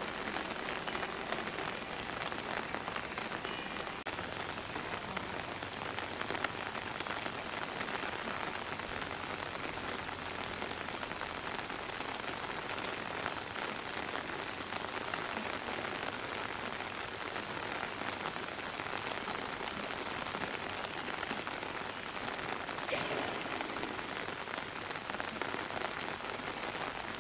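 Steady rain falling on the surface of a pool of water.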